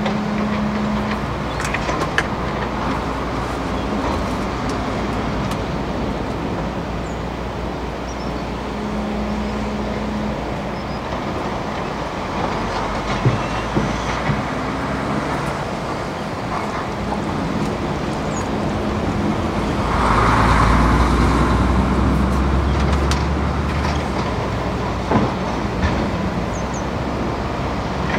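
Hydraulic excavator's diesel engine running under working load while it digs in a shallow river, over the rush of the water, with a few sharp clanks. The engine swells louder for a few seconds about twenty seconds in.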